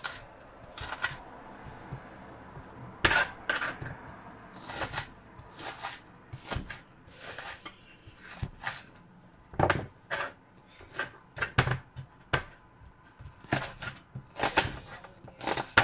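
Kitchen knife and dishes being handled on the counter: irregular sharp clicks, taps and clatters, one or two a second, with louder knocks about three seconds and ten seconds in.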